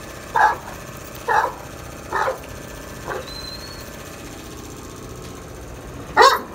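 Akbaş shepherd dog barking: three deep barks about a second apart, a weaker one about three seconds in, and a loud single bark near the end.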